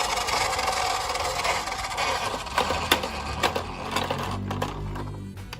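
Toy ambulance minicar running: a steady mechanical whir from its small motor and wheels, with a few sharp clicks about halfway through. Near the end the whir drops lower and fades.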